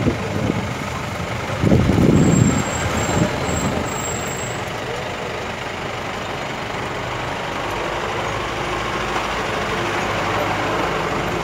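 Vehicle engine running steadily, heard from inside a utility vehicle's cab, with a loud voice briefly about two seconds in.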